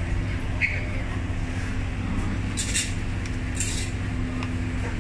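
Steady low hum with a few steady tones. Over it, brief crinkles and clicks of clear plastic takeaway boxes and a metal spoon being handled on a steel counter, about three short bursts.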